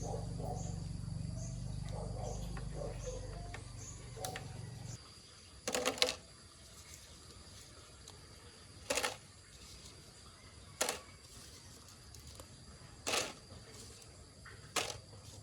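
A steady low hum that cuts off about five seconds in, followed by six sharp clicks or knocks spaced one to two seconds apart.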